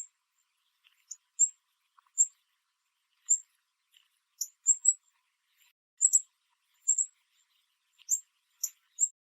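Northern cardinal giving short, sharp, high-pitched metallic chip notes, about a dozen of them at irregular intervals, some in quick pairs.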